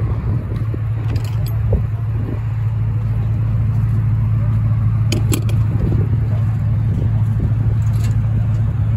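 A steady low engine hum, with a few light clicks.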